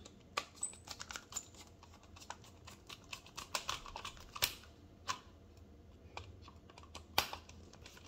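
Screwdriver tightening the wire-terminal screw of a double-pole 40-amp circuit breaker: scattered small clicks and scrapes, with two sharper clicks, one a little past halfway and one near the end.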